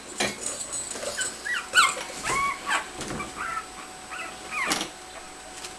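Six-week-old Shichon puppies whimpering and yipping in a string of short, high, bending calls, with a couple of knocks at the start and near the end.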